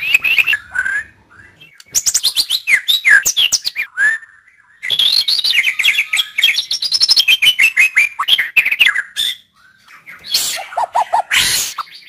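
White-rumped shama (murai batu) singing: fast, varied phrases of sweeping whistles and chattering notes with short pauses between them, and a run of lower notes with a harsh burst near the end.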